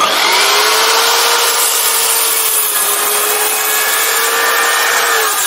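Electric compound miter saw starting suddenly and cutting through a wooden board: a loud, steady motor whine with sawing noise that drops away just before the end as the saw is released.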